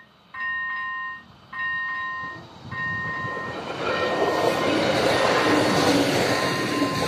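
Level-crossing warning signal ringing in a steady run of electronic two-tone pulses, about one a second. About three seconds in, a two-car regional railcar passes over the crossing, and the wheels and engine on the rails grow into the loudest sound before easing off near the end.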